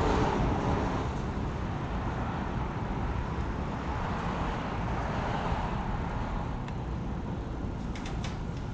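Steady background vehicle noise with no distinct events.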